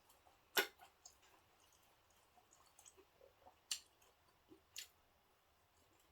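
Quiet eating sounds: three short sharp clicks of tableware, about half a second in, near four seconds and near five, with faint soft chewing between.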